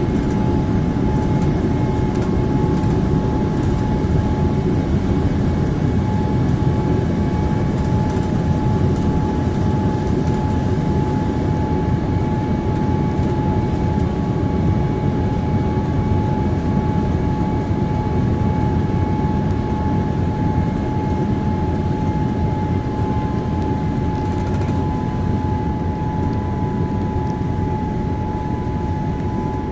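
Cabin noise inside a Boeing 787-8 Dreamliner: a steady rush of airflow and engine noise, with a constant high whine over it.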